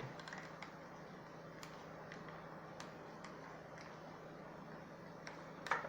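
Faint steady electrical hum with a few light ticks and clicks from small parts being handled at the workbench, and a sharper cluster of clicks near the end.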